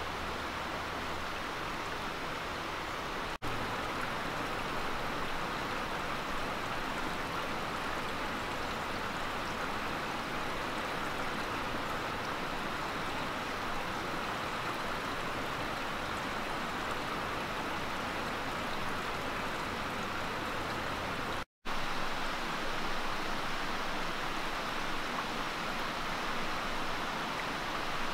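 Shallow creek water flowing over rocks and leaf litter, a steady rushing and babbling that breaks off for an instant twice.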